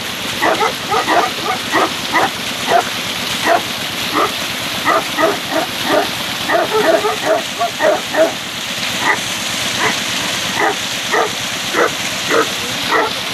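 A dog barking over and over in short barks, about one or two a second, over a steady hiss.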